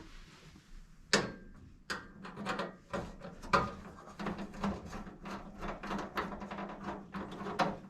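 Screws being backed out of a range hood panel: a run of clicks and scrapes, with a sharp click about a second in and a low steady hum through the middle.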